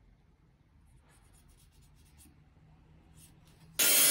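Faint marker-pen strokes on a square steel tube, then near the end an angle grinder's cutting disc bites into the steel tube with a sudden loud, dense rasp.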